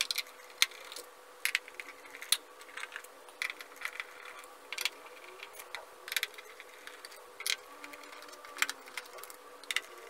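Irregular small clicks and ticks of a Phillips screwdriver backing screws out of the plastic bottom plate of a 360 S7 robot vacuum, over a faint steady hum.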